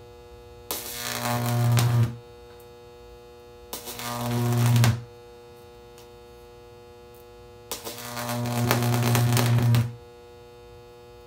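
High-voltage AC sodium arc buzzing loudly with a crackling hiss, struck three times for one to two seconds each as it is drawn and broken. Between strikes a quieter steady hum stays on.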